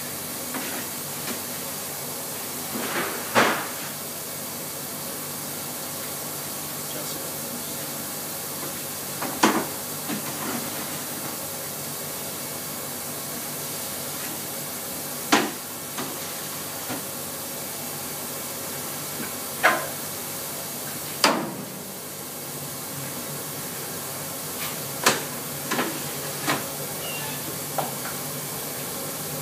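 Steady rushing hiss of a commercial bakery around a multi-deck oven, with about eight sharp metal clanks and knocks at irregular intervals as a peel and baking trays are handled at the oven and the tray rack.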